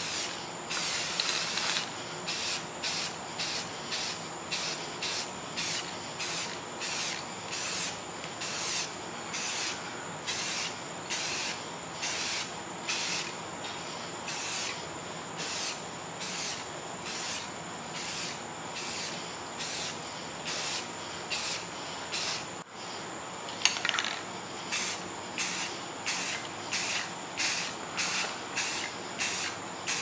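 Airbrush spraying paint in short hissing bursts, about one and a half a second, as the trigger is pulsed on and off over and over. A single sharp click comes about two-thirds of the way through.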